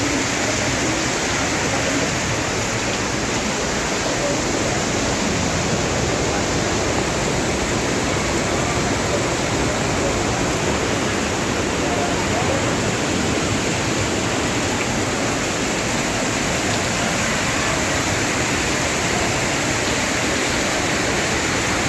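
Floodwater rushing past in a steady, loud roar of churning water after a cloudburst.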